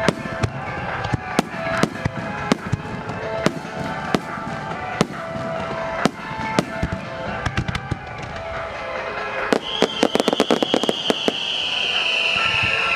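Star mine fireworks barrage: shells bursting one after another in sharp bangs, over music. About ten seconds in comes a quick run of crackling reports, followed by a high tone that slowly falls in pitch.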